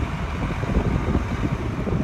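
Wind buffeting the microphone in irregular low gusts, over the steady running of a 1994 Ford L8000 spray truck's engine as it drives off slowly across gravel.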